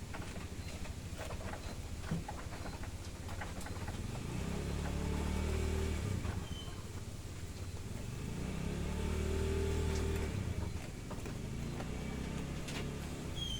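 Motor vehicle engines passing twice, a few seconds apart, each one swelling and then fading over a steady low background hum.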